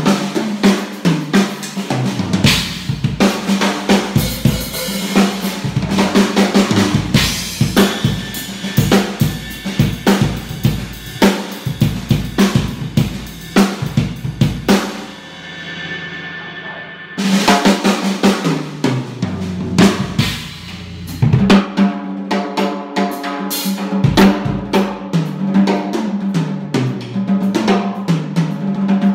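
Acoustic drum kit being played: dense, fast strokes on snare and toms with bass drum and cymbals. About halfway through the playing stops and the kit rings away for a couple of seconds, then the strokes start again.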